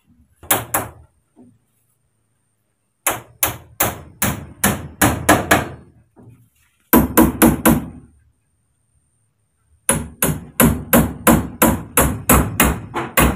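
Hammer striking a green bamboo pole on a wooden frame: four runs of quick blows, about three a second, with short pauses between the runs.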